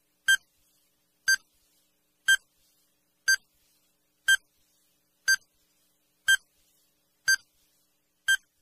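Countdown timer sound effect: short, high electronic beeps, one each second, nine in a row, ticking off the seconds of a quiz countdown.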